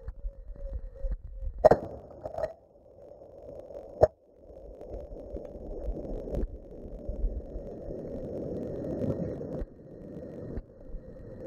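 Handling noise close to a rifle scope's built-in microphone: a sharp click about four seconds in and a smaller one before it, then uneven rubbing and shuffling over a faint steady hum.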